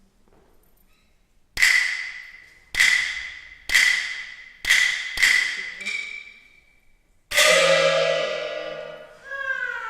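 Peking opera percussion: five sharp, ringing strikes, each dying away at the same high pitch. About seven seconds in the accompaniment comes in with a loud held note, and near the end the jinghu starts its melody with sliding notes.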